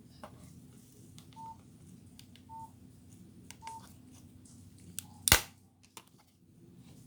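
Nokia 6085 mobile phone beeping through its speaker: three short, identical high beeps about a second apart, with faint clicks between them. About five seconds in comes one loud, sharp click.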